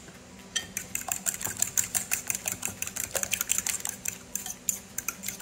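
A metal fork beating raw eggs in a mixing bowl, clinking rapidly against the bowl's sides; the whisking starts about half a second in.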